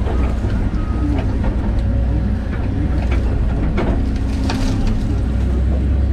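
John Deere 130G excavator's diesel engine running steadily, with scattered short cracks and knocks over it.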